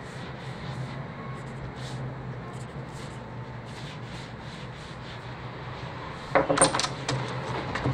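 Pencil scratching across sheets of paper in repeated soft strokes as a manuscript is marked up, over a low steady hum of room tone. About six seconds in, a run of louder sharp knocks and clatter starts.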